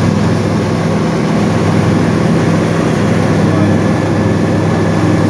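Airliner cabin noise: a loud, steady rush of jet engines and airflow with a low, even hum underneath.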